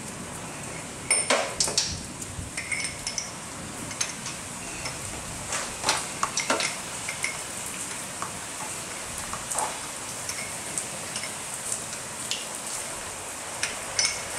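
Metal clinks and taps of a socket wrench with a pipe extension being fitted and worked on a car's crankcase oil drain plug, in scattered clusters, loudest about a second in and around six seconds in. A steady hiss of rain runs underneath.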